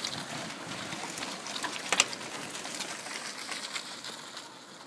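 Mountain bikes riding past on gravel and cobbles: a steady hiss of knobby tyres on loose stones with scattered clicks and rattles, one sharp click about two seconds in. It fades near the end as the riders move away.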